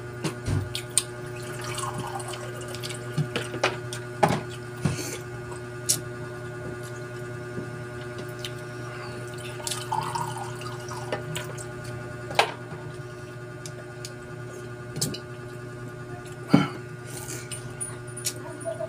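Eating sounds: scattered wet clicks and smacks of lips, chewing and shellfish shells as shrimp and mussels are eaten by hand. A sharper click comes near the end. Under them runs a steady low hum.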